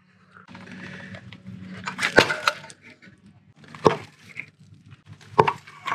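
Plastic valve cover of a BMW N55 engine being pried and pulled loose from the cylinder head: scraping and creaking with three sharp cracks, about two, four and five and a half seconds in, the first the loudest.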